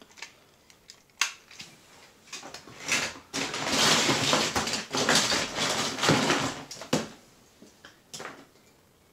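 Plastic toy figures clattering and knocking as hands rummage through a plastic crate, with a plastic bag rustling loudly from about a third of the way in to past the middle.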